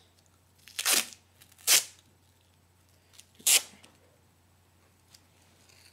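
Duct tape being pulled and peeled in three short rips, about a second, two seconds and three and a half seconds in.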